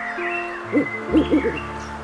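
An animal giving a run of short, low calls, four in quick succession from about halfway in, over background music.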